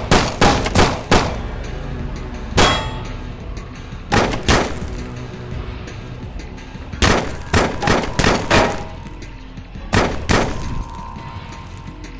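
Gunshot sound effects firing in quick strings and single shots: a rapid string of about five at the start, a single shot, a pair, then a faster string of about six, then another pair, over background music.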